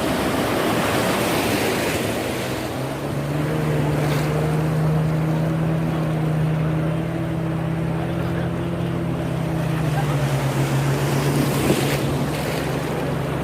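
Motorboat engine running steadily, its note settling in about three seconds in and dropping a little near ten seconds, over the rush of sea water and wind buffeting the microphone.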